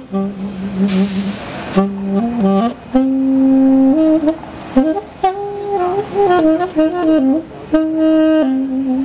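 Solo saxophone playing a slow jazz melody: held notes joined by short runs of quicker notes, with brief breaks between phrases and a wavering vibrato on the long note near the end.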